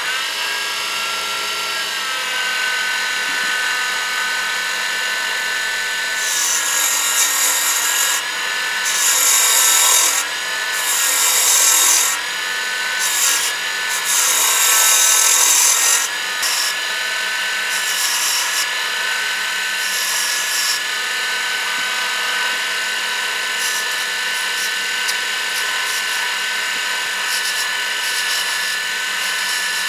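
Wood lathe running with a steady motor whine while a turning tool cuts the spinning dark wooden piece. Several louder bursts of cutting hiss come between about 6 and 16 seconds in, followed by lighter, intermittent cuts.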